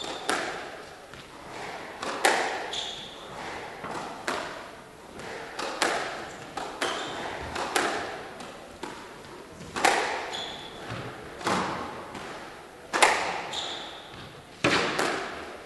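Squash rally: the ball is struck by rackets and smacks off the walls about every one to two seconds, each hit ringing in the hall. Short sneaker squeaks on the wooden court floor come between some of the shots.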